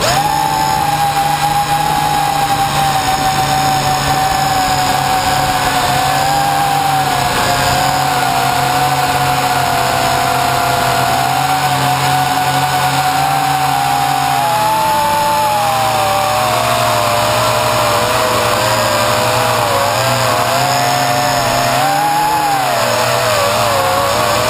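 Quadcopter's electric motors and propellers whining loudly right at the camera, a steady buzz whose pitch drifts slowly. In the second half the pitch wobbles up and down as the throttle changes.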